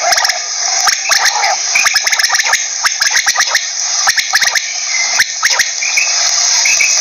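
Quail calling: a fast run of sharp clicking notes broken by short, high call notes repeated about once a second.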